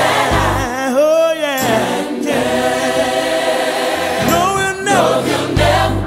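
Gospel song: voices singing held, wavering notes over a bass line and accompaniment.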